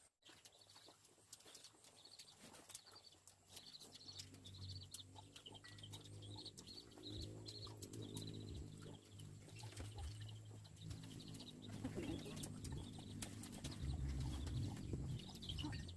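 Birds chirping in short, repeated calls over a low, steady hum that grows louder toward the end.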